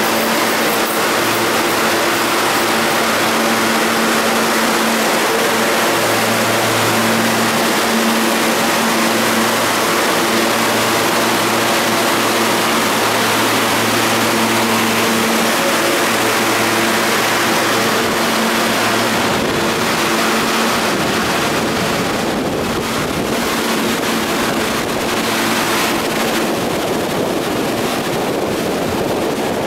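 R160 subway train running alongside the platform: a steady rush of wheels on rail with a low, even hum from the train that cuts out about two-thirds of the way through, leaving the rushing noise to carry on.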